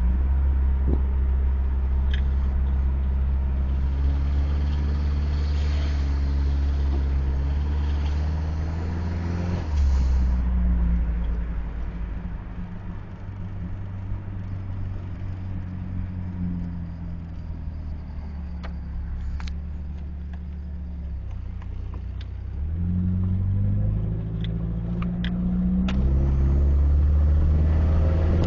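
1989 Dodge Caravan's turbocharged four-cylinder engine heard from inside the cabin. It pulls under load for the first ten seconds or so, runs lighter and quieter through the middle, then pulls louder again near the end, with a few sharp clicks in between.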